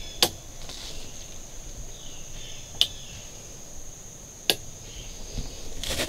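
Four sharp clicks spaced about one and a half to two and a half seconds apart, over a steady high-pitched whine.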